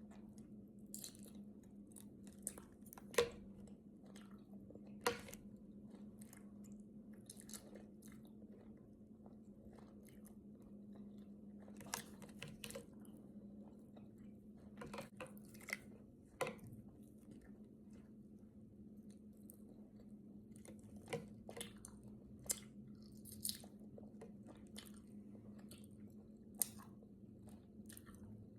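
Close-miked chewing and biting of peel-off strawberry jelly: scattered wet clicks and crunches, a few louder ones, over a faint steady low hum.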